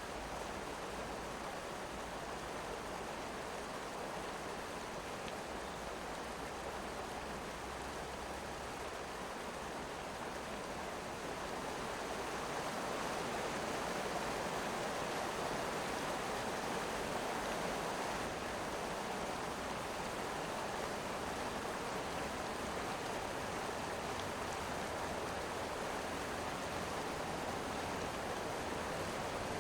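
Mountain river rushing steadily, an even wash of water noise that grows a little louder about twelve seconds in.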